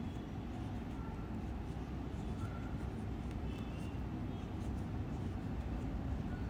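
Steady low background rumble with a few faint light ticks over it.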